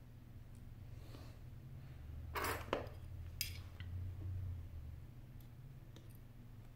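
A short scrape, then two sharp clicks a moment apart, as the opened iPhone 8 Plus's display assembly is handled and laid over its aluminium housing, with a faint tick near the end.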